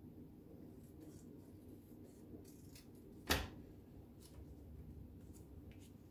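Paper cut-outs being handled on a tabletop: faint rustles and ticks over quiet room tone, with one sharp click a little over three seconds in.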